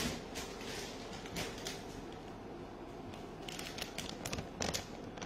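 Quiet kitchen handling noise: scattered faint clicks and light knocks, a little busier near the end, over a low background hum.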